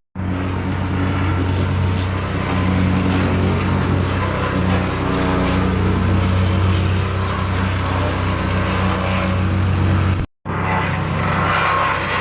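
A small petrol engine running steadily at a constant speed, with a low hum and its overtones under a layer of mechanical noise. It cuts off abruptly about ten seconds in and starts again half a second later.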